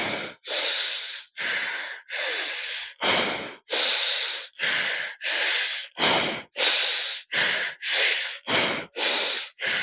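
A man breathing audibly in and out through one nostril at a time in alternate-nostril pranayama: about fourteen hissing nasal breaths in a steady rhythm, each under a second long with a short gap between. The breaths come a little shorter and quicker near the end.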